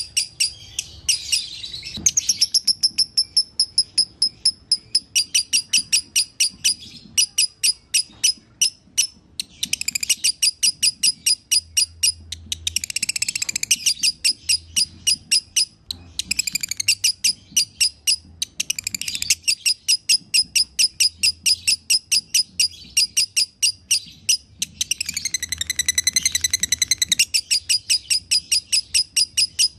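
Lovebird singing a long run of sharp, high chirps, about four or five a second, broken by short stretches of denser warbling chatter: the drawn-out chattering song that Indonesian keepers call 'dobelan'.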